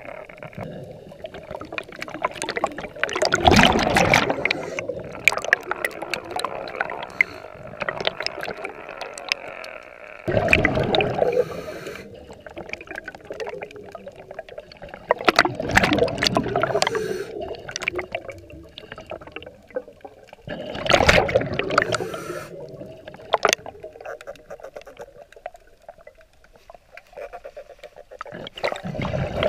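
Scuba diver breathing through a regulator underwater: a loud gurgling rush of exhaled bubbles comes about every five to six seconds, five times, with quieter stretches between.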